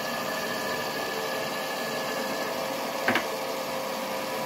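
Stand mixer motor running steadily as its flat beater kneads dough, with a short knock about three seconds in.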